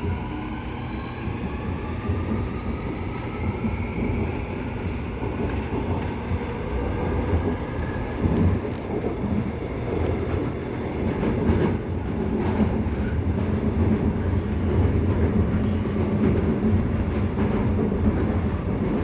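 Seoul Subway Line 2 electric train pulling away: the traction motors' whine rises in pitch over the first few seconds as it accelerates. It then gives way to a steady running rumble with scattered wheel clicks over the rails.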